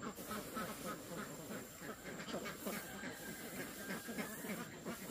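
Unhusked rice grains rustling and pattering as they are scooped from a woven plastic sack and spread by hand over a bamboo tray, with poultry calling faintly in the background.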